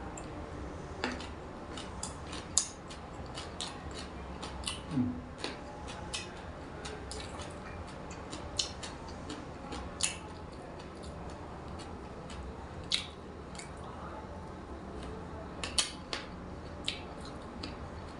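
Someone eating papaya salad and grilled chicken: chewing and mouth sounds with irregular sharp clicks, a few of them louder.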